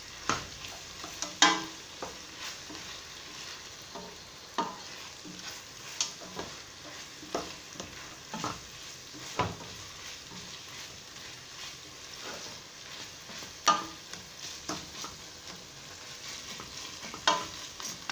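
Sliced onions sizzling as they fry in a stainless steel pot, stirred with a spatula that scrapes and knocks against the pot at irregular intervals. The onions are being browned.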